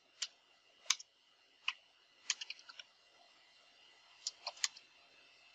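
Computer keyboard keystrokes, a few separate key taps with a quick run of about five strokes in the middle.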